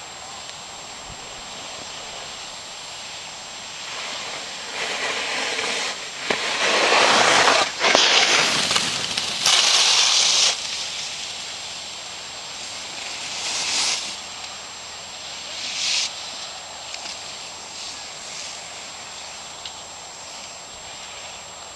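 Ski edges scraping across snow as a crew side-slips the course: a hiss that swells loud for several seconds from about four seconds in as the skiers pass close, then two shorter scrapes later.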